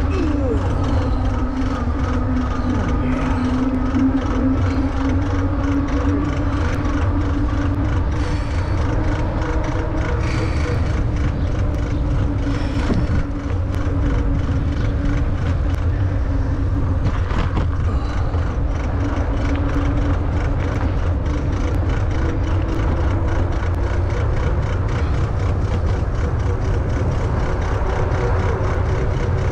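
WALLKE X3 Pro e-bike riding along pavement: heavy wind buffeting on the microphone and tyre roll, with a steady drone from the electric motor that drifts slightly in pitch.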